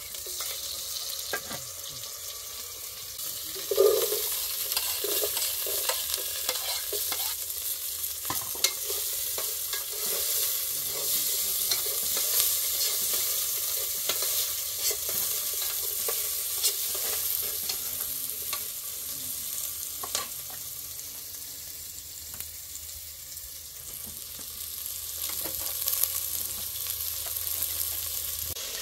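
Diced potatoes sizzling in hot oil in an aluminium pot, with a metal spoon stirring and scraping against the pot now and then and a louder knock about four seconds in.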